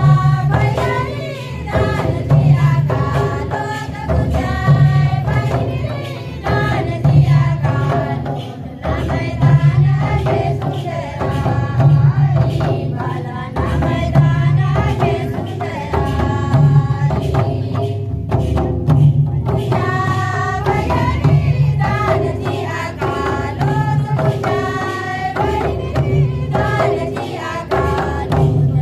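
Adivasi folk song with singing over a steady drum beat, music that accompanies an offering dance.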